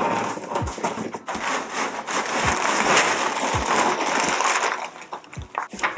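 A cardboard box being opened: scissors slitting the packing tape, then crackling and rustling of cardboard and packing material, with a few dull thumps as it is handled.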